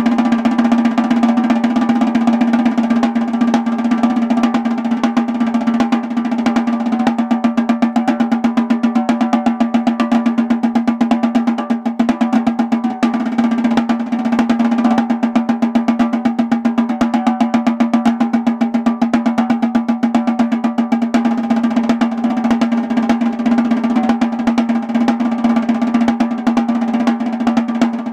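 Snare drum solo played with drumsticks: fast, dense strokes and rolls that run on without a pause, with a passage of clearly separate, evenly spaced strokes in the middle.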